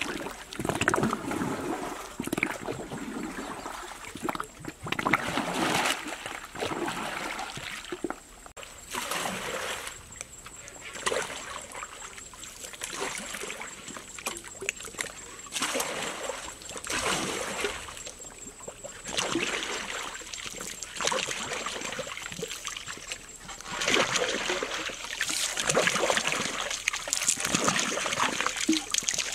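Water splashing and trickling around a bamboo raft as it is poled along a river, swelling and fading in uneven surges.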